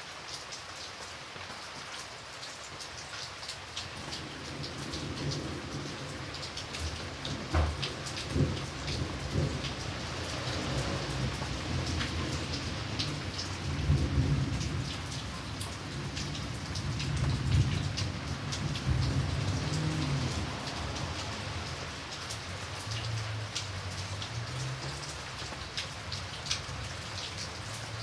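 Light rain falling steadily, with scattered individual drops ticking on a surface. A low rolling rumble of distant thunder builds about four seconds in, swells twice around the middle and dies away near the end.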